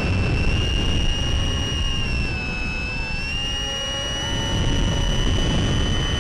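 Brushless electric motor (Sunnysky 1240 kV) spinning an 8x6 propeller on a flying Mini Talon FPV plane: a steady high whine over a low rumbling rush of air, the whine edging up a little in pitch about halfway through.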